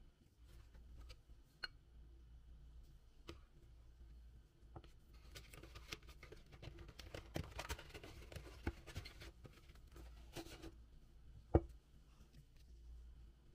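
A cardboard gift box rustling and scraping as it is slid off a glass bottle, with small clicks and taps throughout. A single sharp knock comes near the end.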